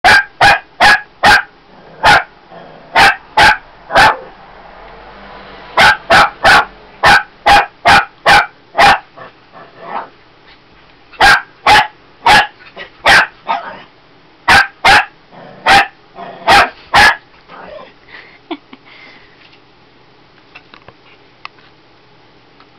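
Shih Tzu puppy barking loudly, short sharp barks in quick runs of several at about two a second, with brief pauses between runs; the barking stops about three-quarters of the way through.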